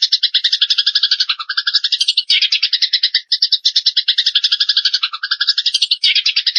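Small songbird giving a long, very fast chattering trill of rapid buzzy notes, broken by brief pauses, typical of a sparrow or cililin masteran recording.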